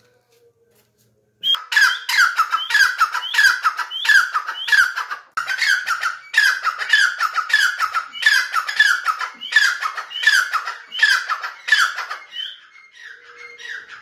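Grey francolin (teetar) calling: a loud series of repeated shrill notes, about two a second, starting after a second and a half of quiet and fading near the end.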